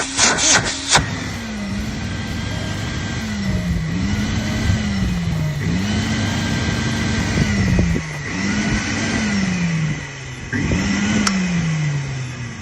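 Hoover Constellation vacuum cleaner's motor running unsteadily, its speed surging up and sagging back about every two seconds and falling lower near the end: a motor on the way to burning out. A few clicks and rattles in the first second.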